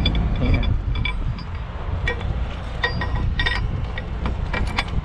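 Steel recovery rigging clinking: chain links, a hook and a shackle pin knocking and ringing against each other in a dozen or so sharp, irregular clinks as the hook is pinned to the chain, over a low steady rumble.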